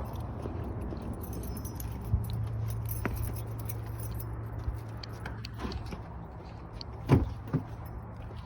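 Keys jangling and small clicks and rattles of someone at a car, over a low steady hum. A sharp knock comes about two seconds in, and two heavy thumps come close together about seven seconds in, the loudest sounds, like a car door being shut.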